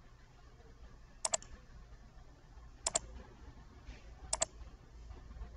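Faint computer mouse button clicks: three quick double clicks about a second and a half apart.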